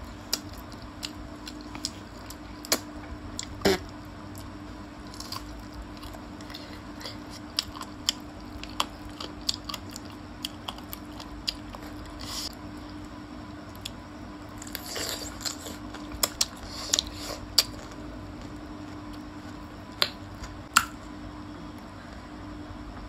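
Close-miked chewing and biting on gravy-coated chicken feet, with scattered sharp crunches and clicks from the small bones, over a faint steady hum.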